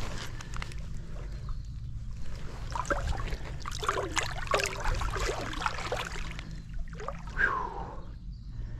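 Shallow water splashing and sloshing around hands held in it as a caught yellowtail kingfish is released, busiest through the middle, over a steady low rumble.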